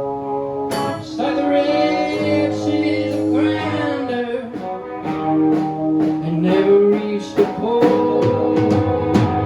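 Band music with a singer holding long, wavering notes over guitar, a slow country-blues song.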